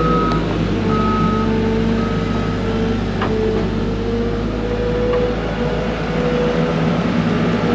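Skid steer engine running steadily while it works, its reversing alarm beeping about once a second for the first three seconds and then stopping.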